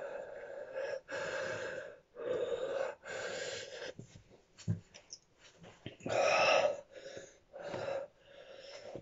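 A man breathing hard through his open mouth, heavy huffing breaths about one a second, from the burn of a very hot chili pepper. The breaths ease off for a moment in the middle with a few small mouth clicks, and the loudest one comes about six seconds in.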